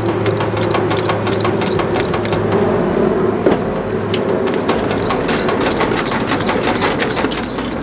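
Strapped-down motorcycle being rocked hard on a trailer deck: irregular knocks, creaks and rattles from the bike, tie-down straps and trailer, over a steady low hum.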